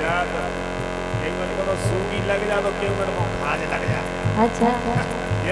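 Loud steady mains hum from the stage PA system, under a man's singing voice and a harmonium. A low pulse repeats about three times a second.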